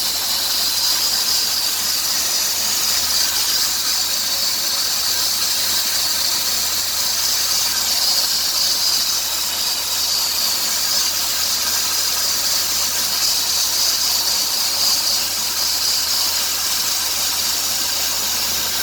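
Steady high-pitched hissing squeal from the 2003 Dodge Grand Caravan's 3.3-litre V6 engine. It is the noise that the owner has not cured by replacing the idler pulley, the belt tensioner pulley and the power steering pump.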